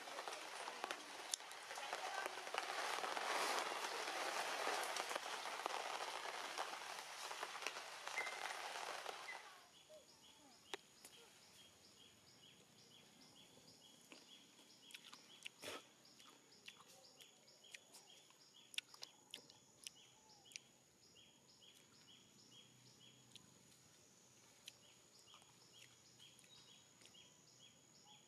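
Steady hiss of rain, stopping abruptly about nine and a half seconds in. After it there is only a faint, high-pitched, quick and even pulsing with a few scattered clicks.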